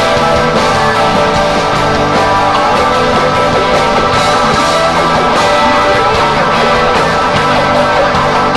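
Live rock band playing an instrumental passage: guitar over bass and drums, loud and steady with a regular beat.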